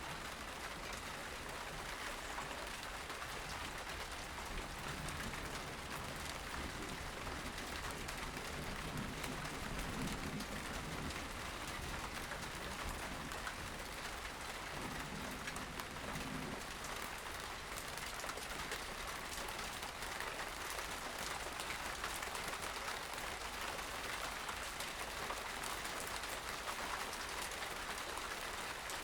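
Steady outdoor ambient hiss with no clear single source, joined by a faint low hum from about 6 to 17 seconds in.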